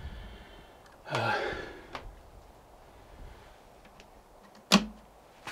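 A short breathy vocal sound, like a sigh, about a second in. Then a few light clicks and one sharp knock near the end.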